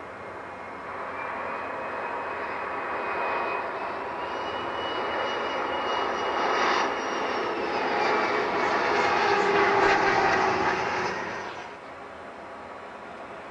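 Engines of a twin-engine regional jet on low final approach, a roar with a high whine building as it comes over. The whine bends down in pitch as the jet passes, and the sound cuts off suddenly near the end.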